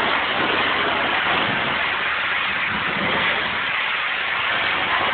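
Pressure washer spraying concrete: a steady hiss of the water jet over the low drone of the machine's motor.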